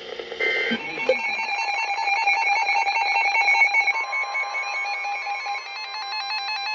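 Emergency Alert System digital data burst (SAME header/end-of-message codes): rapidly alternating electronic tones, with a steady alert tone coming in underneath about four seconds in.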